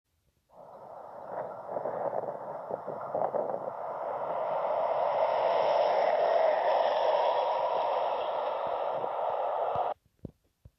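Passenger train passing close at speed: a steady rush of wheels on rails that grows louder as it goes by, then cuts off suddenly near the end, followed by a few faint clicks.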